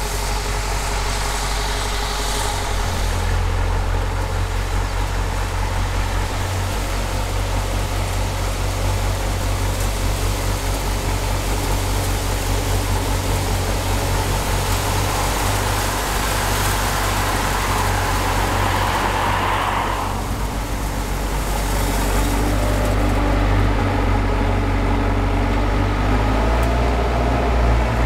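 Engine of a 1992 Bateman Hi-Lo 2001 self-propelled sprayer running steadily as the machine drives, with a deep hum under it. A hiss builds up and then cuts off suddenly about twenty seconds in, and the engine gets louder again near the end.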